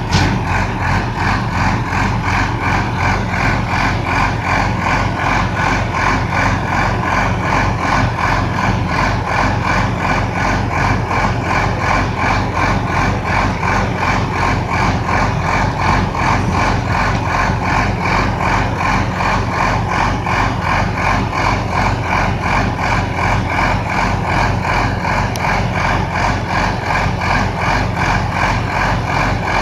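Drilling rig running steadily: an engine hum with a fast, even rattling pulse that does not change.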